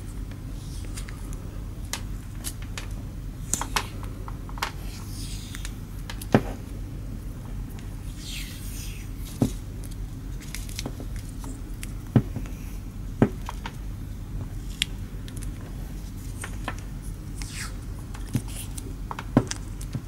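PVC electrical tape being pulled off its roll and wound around a USB cable's plug end: scattered crackles and ticks, with a longer tearing rasp about eight seconds in, over a steady low hum.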